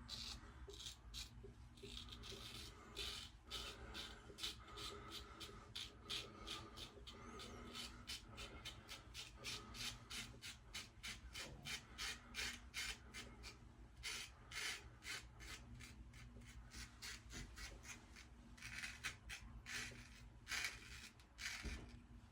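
Single-edge safety razor scraping through lathered stubble in short, rasping strokes, several a second, during the first pass of a wet shave.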